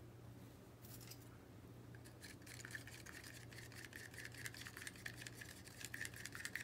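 Acrylic paint being stirred with a stick in a small plastic cup: quick, faint, rapid scraping and tapping against the cup's wall, starting about two seconds in.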